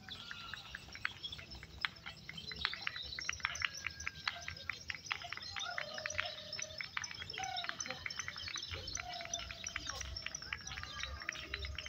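Many caged songbirds singing at once, a dense overlapping mix of rapid chirps, clicking notes and short whistles with no break.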